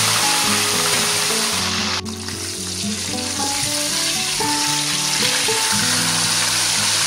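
Whole tilapia deep-frying in hot oil in a wok: a steady, dense sizzle that drops a little about two seconds in, over soft background music.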